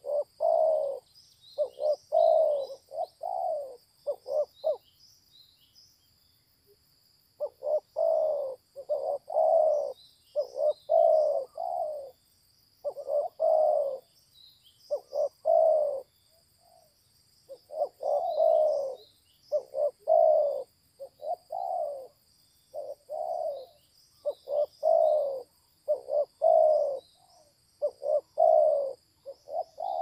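Spotted dove cooing: a long run of low, repeated coo phrases, pausing for about three seconds some five seconds in. Faint high chirps of small birds sound behind it.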